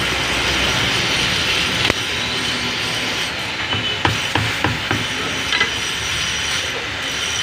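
Steady background noise with a few sharp knocks and clicks: one about two seconds in, a cluster of them around four to five seconds, and another shortly after.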